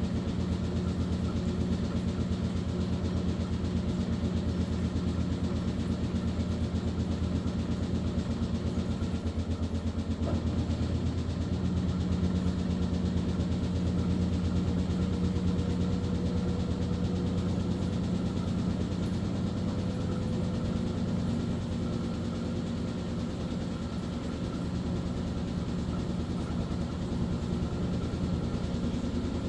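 Maytag washing machine running steadily: a motor hum with a fast, even pulsing, and a faint tone that slowly rises in pitch through the second half.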